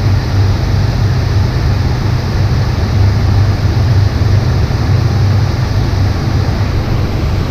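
Steady rushing noise of shallow creek water close to the microphone, with a heavy low rumble that does not let up.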